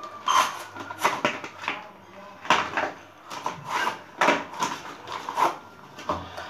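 Small cardboard cartons of cream being handled and set down one after another on a hard surface, with packaging rustle: a string of about a dozen irregular taps and knocks.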